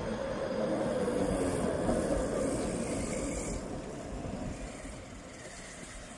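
A passing vehicle's noise, swelling to its loudest about two seconds in and then fading away.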